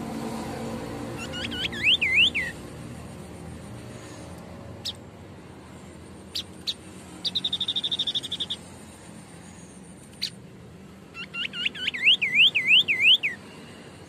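White-breasted babbler (Stachyris grammiceps) singing: two phrases of quick whistled notes swooping up and down, the second one longer, near the start and near the end. Between them comes a short fast rattling trill and a few sharp ticks.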